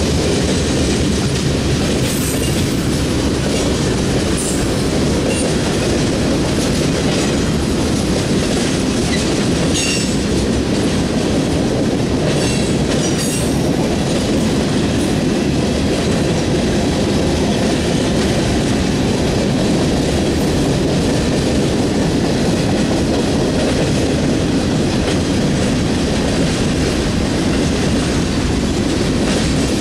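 Freight train cars (boxcars, flatcars, gondolas, tank cars) rolling past: a steady rumble and clatter of steel wheels on rail. A few brief high-pitched squeaks come in the first half.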